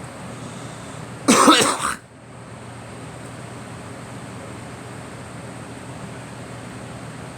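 A person coughing: one short burst of coughing about a second and a half in, over a steady background hiss.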